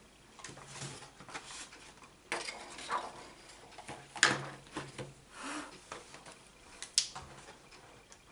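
Small hard objects being handled: a few sharp clicks and light clatters, the loudest about four and seven seconds in, with soft rustling in between.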